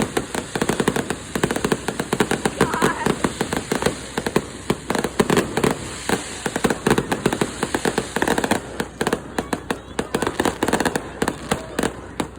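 Fireworks going off in a dense, continuous run of rapid bangs and crackles, many reports a second, thinning a little about nine seconds in.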